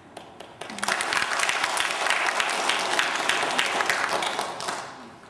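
Audience applauding: a few scattered claps, then full applause from about a second in that dies away near the end.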